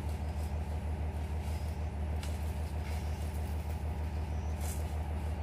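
Truck on the move: a steady low engine-and-road rumble, with a few brief light rattles.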